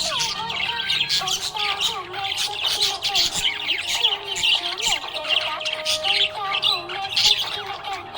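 Budgerigars chirping and chattering in a dense, continuous stream of rapid high chirps, over a melodic music track.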